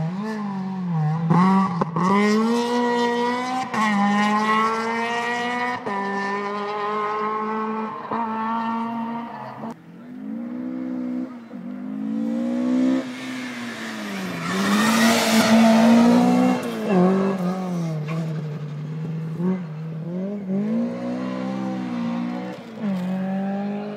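Rally car engines revving hard, the pitch climbing and dropping with each gear change as the cars accelerate along the stage. About fifteen seconds in, one passes close with a loud rush of tyre and road noise, then its engine fades away.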